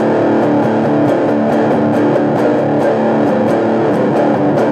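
Electric guitar playing a metal riff with a steady, regular rhythm of sharp picked attacks, no vocals.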